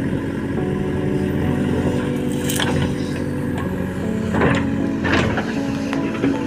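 JCB backhoe loader's diesel engine running under load as the backhoe digs and dumps soil, its pitch shifting with the work. A few brief louder rushes of noise come in the second half.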